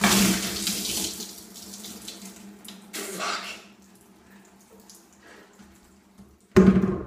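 A bucket of ice water dumped over a person's head: a loud splash that starts at once and fades over a couple of seconds into trickling and dripping. A loud thump near the end.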